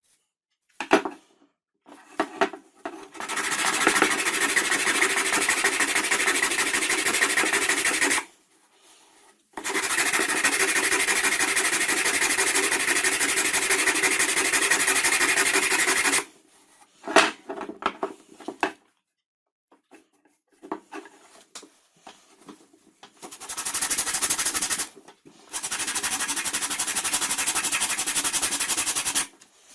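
Scroll saw running in several long stretches, stopping and starting again between them, with short knocks and clicks in the pauses. The blade's rapid up-and-down stroke gives a fast, even buzz.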